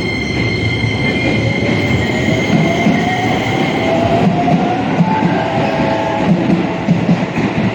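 Keisei Main Line electric train pulling away: a high steady tone fades out in the first couple of seconds while the motor whine rises in pitch as the train accelerates. Wheels clack over the rail joints in a regular beat.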